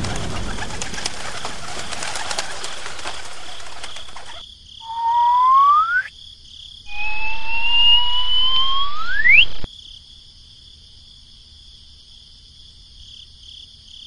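Heavy rain over a steady high insect drone, the rain cutting off abruptly about four seconds in. Then come two loud rising whistles, the second longer and sweeping sharply upward at its end, and after them only the faint high insect drone.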